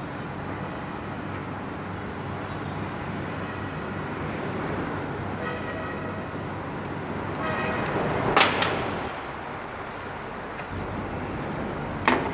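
Steady workshop background noise with a clatter of metal tools and parts, loudest about eight seconds in.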